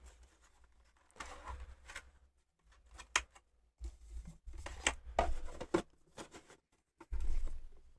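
Cardboard Elite Trainer Box and its packaging handled at close range: irregular rustles and scrapes with a few sharp clicks and low bumps.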